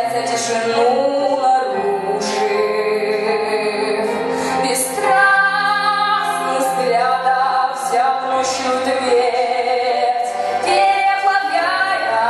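A woman singing a song with instrumental accompaniment, holding long notes over a bass line.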